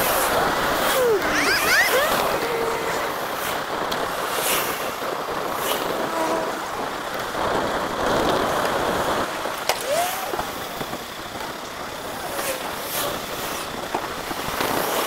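Fast-forwarded road recording: a busy wash of traffic and wind noise, with brief gliding engine pitches from vehicles passing and a few sharp clicks.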